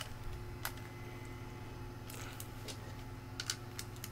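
A few scattered faint clicks and handling noises from a small screwdriver tightening a 6-32 hard-drive screw into a 3D-printed plastic drive mount, over a steady low hum.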